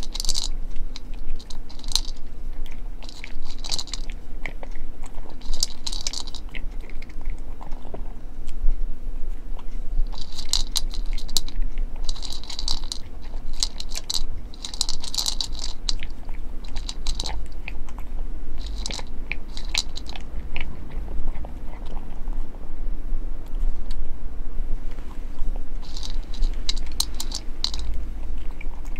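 A cat crunching dry kibble, in runs of crisp crunches with short pauses between them.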